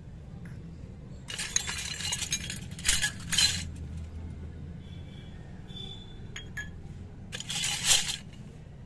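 Miniature stainless-steel toy utensils clinking against one another as they are handled and set down on concrete, in bursts: a longer run from about a second in, and another near the end.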